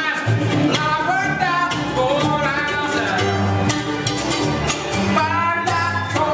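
Bluegrass band playing live: a man sings lead over mandolin, acoustic guitar and bass.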